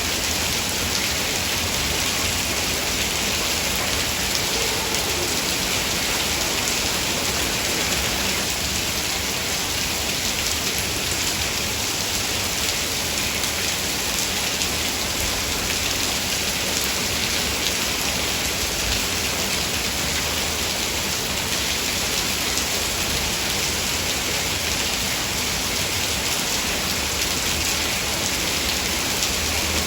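Heavy rain falling steadily, a dense, even hiss of drops without let-up.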